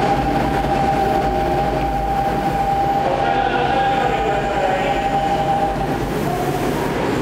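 Odakyu electric commuter train standing at an underground station platform before departure. A steady high tone, with a second tone just below it, holds for about six seconds over the station din and then changes.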